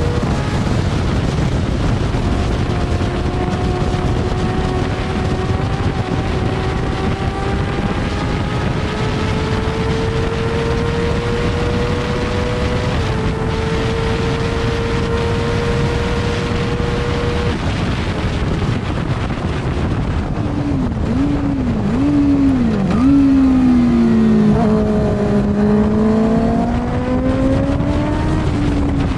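Formula 2 racing sidecar's 600cc four-cylinder engine at race speed under heavy wind rush, holding a high note that climbs slowly along the straight. About twenty seconds in the pitch drops in several quick dips as the outfit brakes and changes down for a corner, then rises again as it accelerates out.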